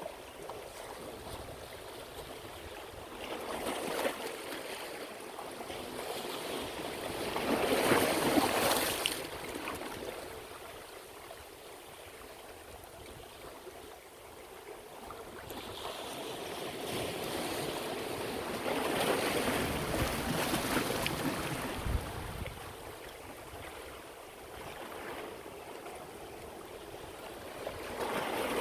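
Sea waves breaking and washing onto the shore, swelling and fading in slow surges about every ten seconds, the loudest about eight seconds in.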